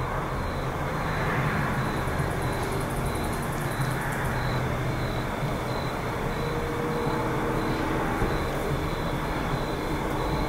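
Steady low rumble and hum of night-time outdoor ambience, like distant traffic, with no clear knocks or voices.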